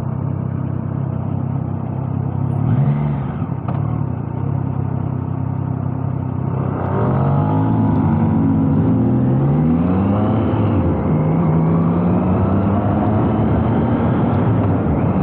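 Triumph Trident 660's inline three-cylinder engine under way, first running at a steady note. About seven seconds in it grows louder as the bike accelerates, its pitch climbing and dropping back through several gear changes before holding a steady higher note.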